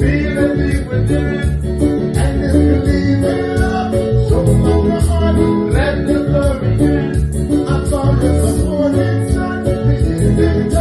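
A band playing a song in rehearsal: guitar and bass under a singing voice, with drums keeping a steady beat on the cymbals.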